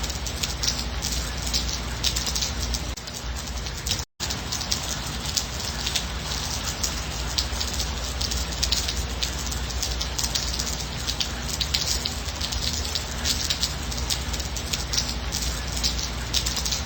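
Steady gentle rain, a dense patter of many small drops over a low rumble. The sound cuts out for an instant about four seconds in.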